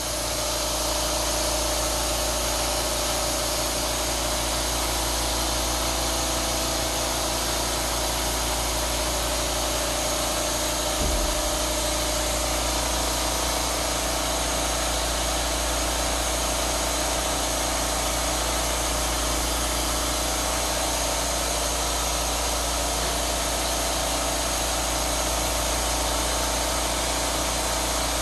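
Drum-shaped stainless steel odour-removal blower with a fan grille, an ADS Sangkmi spraying unit, running with a steady whir and hum. A single light knock comes about eleven seconds in.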